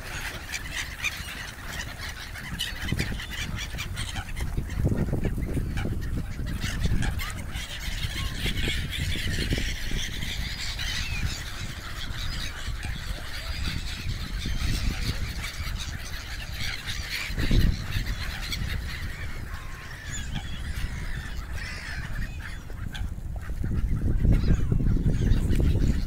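A large flock of gulls calling, with many harsh, overlapping squawks. Wind rumbles on the microphone underneath, with a single low thump partway through, and the rumble grows louder near the end.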